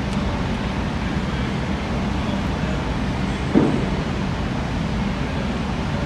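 Steady low background rumble and hum of the gym room, with one short thump about three and a half seconds in as the exerciser drops from his hands onto his forearms on the rubber mat.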